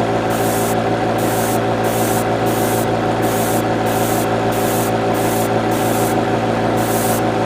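Airbrush spraying paint with its compressor running: a steady motor hum under a hiss of air that pulses about twice a second.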